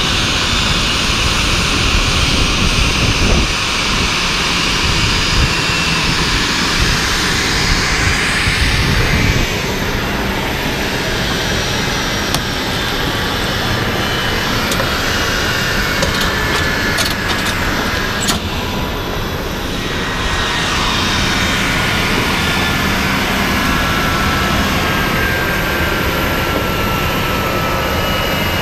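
Boeing 737-800's CFM56 jet engines running loudly on arrival at the stand. Through the second half their whine slowly falls in pitch as the engines spool down after shutdown.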